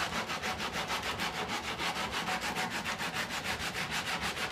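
Sandpaper rubbed by hand along the chamfered face of a wooden table leg, in quick, even back-and-forth strokes, several a second. It is the smoothing stage after the rasp has shaped the chamfer.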